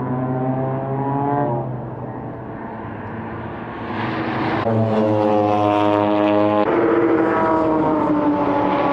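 Race car engines accelerating hard on the track, the engine note climbing and dropping back at each upshift. It gets louder about halfway through as a car comes nearer, then climbs through another gear.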